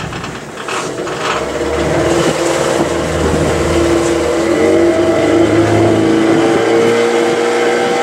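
A motor vehicle's engine running and growing louder, its pitch rising about halfway through as it speeds up.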